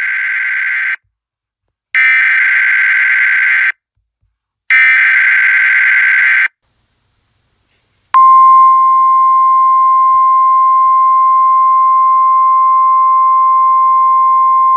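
Emergency Alert System header tones: the end of one burst of rapid two-pitch digital data, then two more identical bursts each under two seconds long, with short gaps between. About eight seconds in, the steady single-pitch NOAA Weather Radio warning alarm tone starts and holds.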